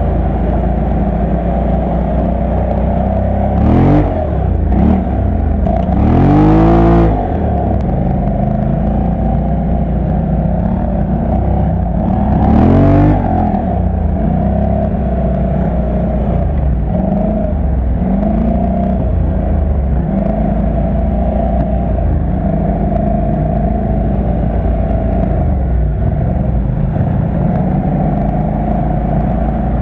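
Quad bike (ATV) engine running steadily, heard from the rider's seat on a muddy trail. The engine is revved up and back down three times, about four, seven and thirteen seconds in, the second rev being the longest.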